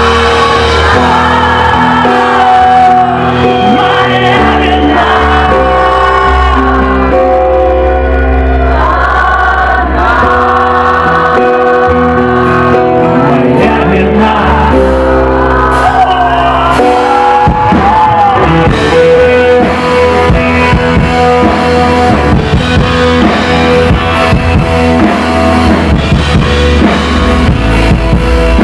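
Rock band playing live, with a male lead singer singing over held guitar and keyboard chords. About two-thirds of the way in, the drums and the rest of the band come in with a steady beat.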